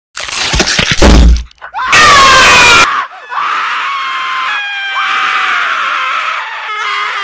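Dubbed-in scream and groan sound effects. A short noisy burst and a loud hit come first, then about two seconds in a harsh shriek lasting about a second, then a long wavering groan that carries on to the end.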